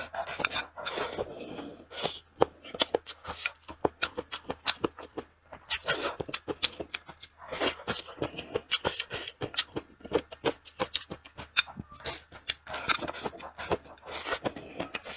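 Close-miked eating sounds of chicken and rice: constant wet chewing and lip-smacking clicks, with longer noisy stretches about a second in, around six seconds in and near the end as food is taken into the mouth.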